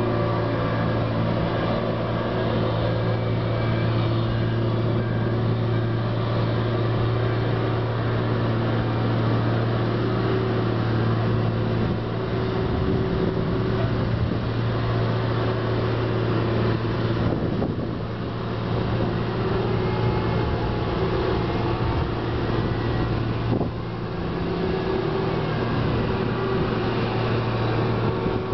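Engine of a Shuttlelift DB rubber-tyred gantry crane running steadily as the crane drives, a constant low drone with a few steady overtones that dips briefly twice in the second half.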